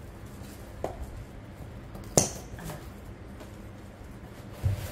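Scissors snipping through plastic packing straps: two sharp snaps about a second and a half apart, a few fainter clicks after, and a dull thump near the end as the cut straps and cardboard are pulled away.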